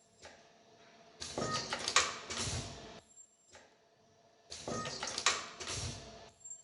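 YFM-109NCA automatic nylon zipper film welding machine running in auto mode, cycling about once every three seconds. Each cycle is about two seconds of mechanical clatter and sharp clicks as it feeds, welds and cuts a zipper piece, followed by a quieter pause. Two cycles fall in this stretch.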